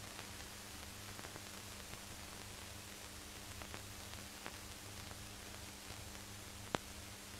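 Steady hiss and a faint low hum from an old film soundtrack, with scattered faint crackles and one sharper click near the end.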